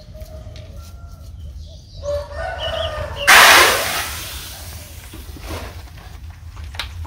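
Car tyre rolling onto a block of OASIS Spring floral foam and crushing it: a sudden loud crunch about three seconds in that fades away over about a second.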